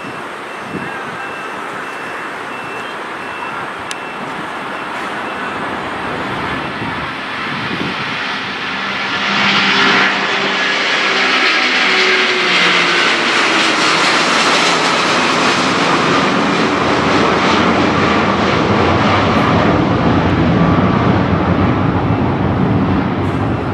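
Jet engines of an Airbus A330-300 airliner running as it passes, growing louder and staying loud from about nine seconds in, with whining tones that slide down in pitch as it goes by.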